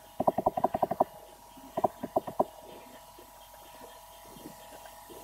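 Computer mouse clicking rapidly: a quick run of about eight clicks in a second, then a few more about two seconds in, over a faint steady hum.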